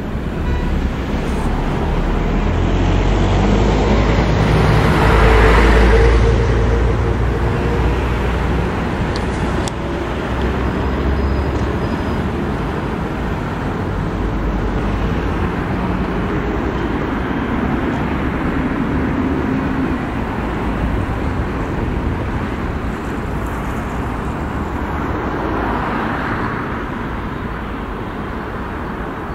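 Busy urban road traffic: engines and tyres of passing cars, buses and trucks. A deep engine rumble builds and is loudest about five to six seconds in, and another vehicle swells past near the end.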